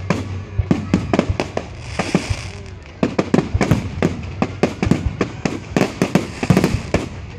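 Fireworks display: aerial shells banging in a rapid, irregular string of many bursts. A short hiss comes about two seconds in.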